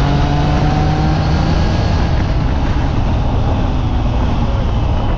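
Triumph Trident 660's 660cc inline three-cylinder engine running at a steady cruise under the rider, with wind rushing over the microphone.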